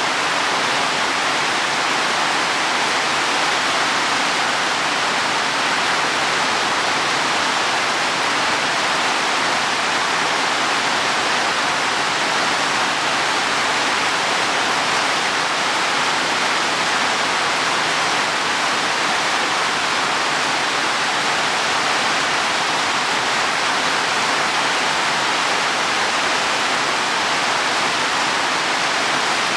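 Heavy rain falling steadily on leaves and soil, an even, unbroken hiss that holds at one level throughout.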